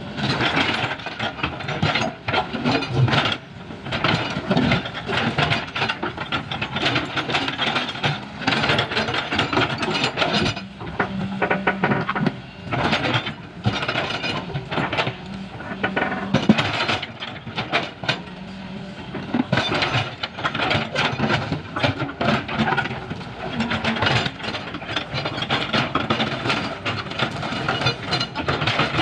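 Hydraulic crawler excavator's diesel engine running under load while its steel bucket scrapes and knocks through broken asphalt slabs, with frequent irregular clanks and crunches over the steady engine note.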